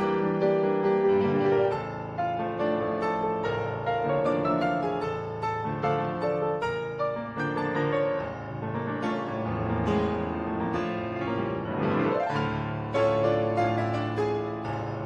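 Background piano music, busy with many quick notes, with a brief swooping sound about twelve seconds in.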